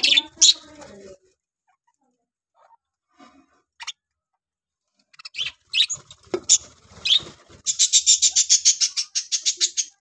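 Budgerigars chirping: a few high chirps, a quiet spell, more chirping, then a fast run of repeated high chirps, about six a second, over the last two seconds.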